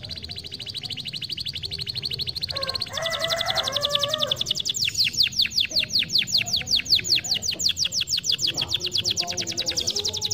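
Domestic canary singing. It opens with a very fast, high trill, switches about three seconds in to a slower run of downward-sweeping notes at about seven a second, and goes back to the fast trill near the end.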